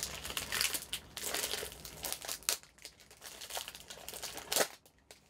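Cellophane shrink wrap crinkling as it is peeled off a DVD case by hand: dense, irregular crackling that thins out after about three seconds, with one sharper crackle near the end.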